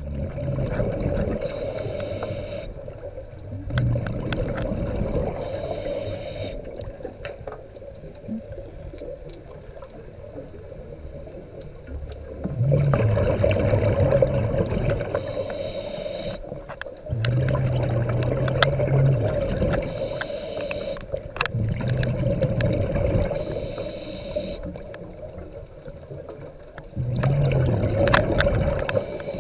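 A scuba diver breathing through a regulator underwater: about six short hissing inhalations, each followed by a longer burst of bubbling exhaust, repeating every four to five seconds.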